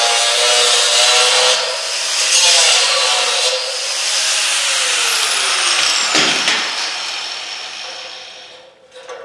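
Power saw cutting through an aluminum ladder rail with a loud, steady grinding whine. The motor then winds down and stops near the end.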